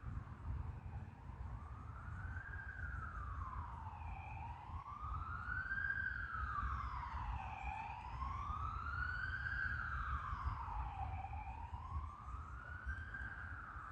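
A wailing siren, its pitch rising and falling slowly about every three and a half seconds, over a steady low rumble.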